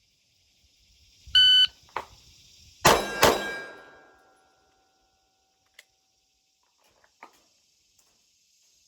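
Shot timer beeps once. About a second and a half later a handgun fires two shots about a third of a second apart, with a click between the beep and the first shot.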